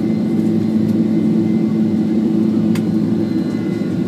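Steady cabin drone of a Boeing 767 airliner in flight: engine and airflow noise with a constant low hum. A single faint click about three seconds in.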